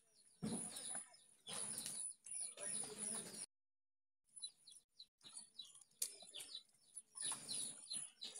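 Birds chirping in short bursts of quick falling chirps, broken off by a brief silence about three and a half seconds in.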